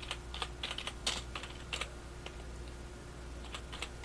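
Typing on a computer keyboard: a quick run of keystrokes over the first two seconds, a pause, then a few more keystrokes near the end.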